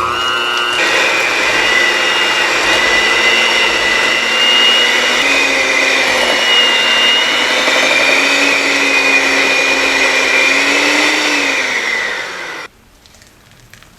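Small electric kitchen appliance motor, such as a hand mixer beating the dough, running steadily with its pitch drifting slightly under load. About three-quarters of a second before the end it winds down in pitch and stops abruptly.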